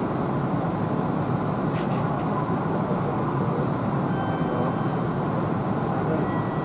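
Steady hum of a stopped Kintetsu Series 21 electric train's onboard equipment, heard inside its cab, with a few faint clicks about two seconds in.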